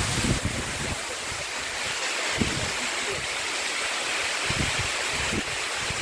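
Steady rush of the upper Butakovsky mountain waterfall, with irregular low gusts of wind on the microphone.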